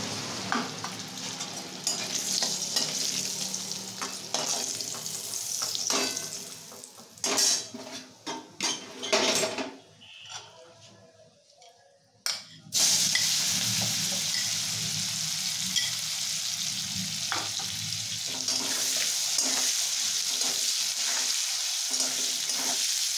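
Paneer cubes sizzling in hot oil in a metal kadai, with a flat metal spatula scraping and clicking against the pan. A run of sharp clicks comes about a third of the way in. The sizzle then falls almost silent for about two seconds and starts again loudly as a fresh batch of paneer goes into the oil, then frying steadily.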